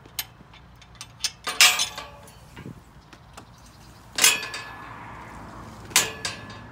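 Wheelchair frame clanking and knocking as it jolts over bumpy, uneven ground: several sharp metallic clanks a second or two apart, the loudest near 2 s and just after 4 s.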